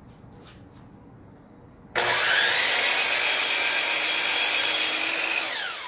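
DeWalt sliding compound miter saw started about two seconds in: its motor whine rises quickly and holds steady while the blade cuts a cedar board, then the motor winds down with a falling pitch near the end.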